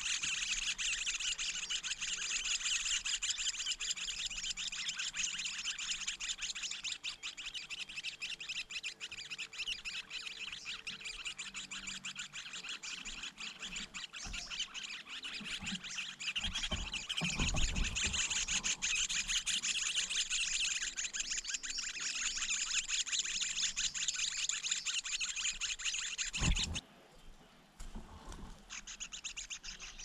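Leiothrix nestlings begging at the nest with a dense, rapid, high-pitched chirping that keeps up while they are fed, breaking off briefly near the end. A few low thumps are mixed in.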